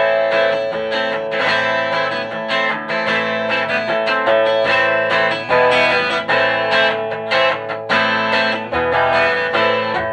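Electric guitar strumming rhythm chords through the normal channel of a 1965 WEM Control ER15 valve amplifier, with its push-pull EL84 output stage. The strumming is steady and regular, with only a light edge of drive.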